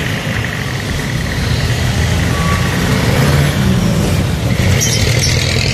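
Engine and road noise heard from inside a moving passenger jeepney: a steady low rumble that grows a little louder after about two seconds.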